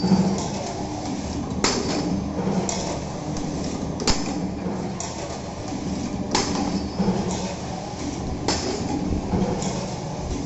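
CNC wire bending machine forming stainless steel pot handles: a steady motor hum with sharp metallic clanks and clinks, the loudest coming about every two seconds.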